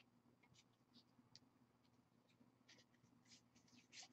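Faint, soft rustles and flicks of Magic: The Gathering trading cards being slid and shuffled through by hand, a few brief scrapes scattered over near silence.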